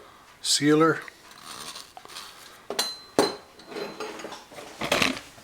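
Small hard parts clinking and knocking on a work surface as faucet pieces are handled, three sharp knocks with light rustling between them.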